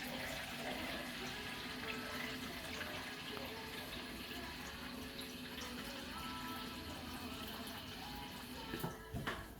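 Water running steadily as the Rancilio espresso machine's water reservoir is refilled, with a couple of short knocks near the end.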